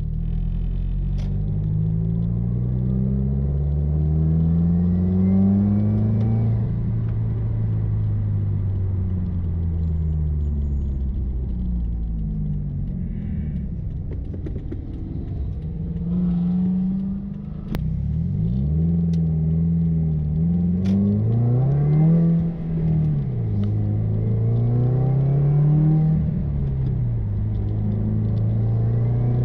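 Subaru WRX's turbocharged flat-four running through a muffler-deleted exhaust, heard from inside the cabin on the move. The engine note climbs over the first six seconds and eases off, then rises and falls a few times before holding steady near the end.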